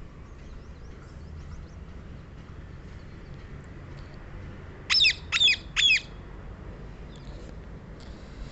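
Rose-ringed parakeet giving three loud calls in quick succession about five seconds in, each short and falling in pitch. Fainter short chirps come in the first two seconds.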